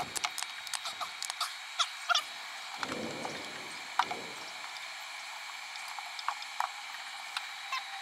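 Scattered small clicks and snaps of spark plug wire boots being pulled off and pushed back onto a distributor cap, with a couple of duller knocks from hands working in the engine bay. A faint steady high-pitched tone sits underneath.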